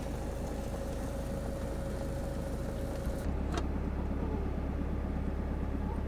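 Diesel engine of an Iveco Daily campervan idling steadily just after being started, heard from inside the van. A little past halfway the low rumble grows louder and the higher hiss drops away.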